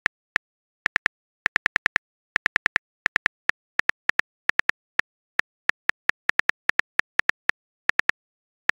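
Keyboard typing sound effect: quick, irregular key clicks tapped in short bunches, a few per second, while a reply is being typed.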